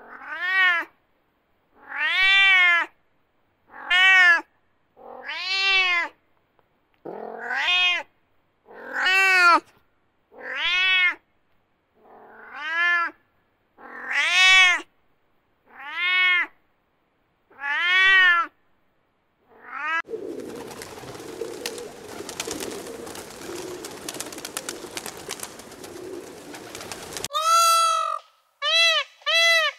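Domestic cat meowing over and over: about a dozen long meows, each rising and falling in pitch, roughly one every second and a half. Then several seconds of crackling hiss. Near the end an Indian peafowl starts calling in short, quick repeated cries.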